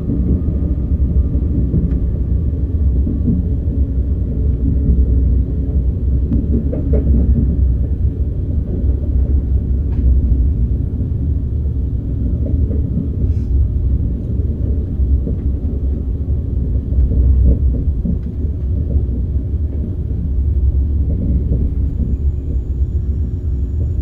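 Cabin noise inside a KTX-Sancheon train running on the rails: a steady low rumble.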